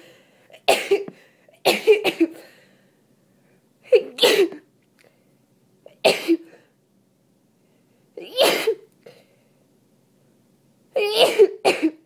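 A person with a head cold and congestion sneezing again and again: about six wet sneezes spaced a second or two apart, some coming as a quick double.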